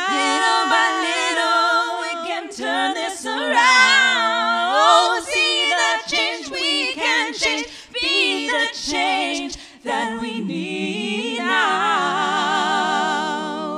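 Multitracked a cappella female vocals: one woman's voice layered in four harmony parts, with moving, ornamented lines over the harmony. About ten seconds in they settle on a long held chord with vibrato.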